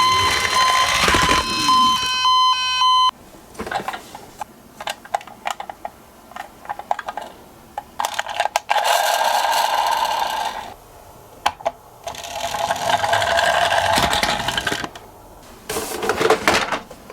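A toy ambulance's electronic sound unit plays a steady beeping tone that cuts off about three seconds in. After that come light plastic clicks and clatter from handled miniature cars, and three stretches of rattling noise from toy cars rolling along a plastic slope.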